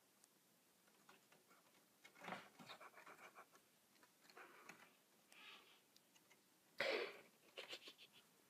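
Faint scratching and tapping of a squirrel's claws on window glass, in a few short spells, with one louder brief sound about seven seconds in.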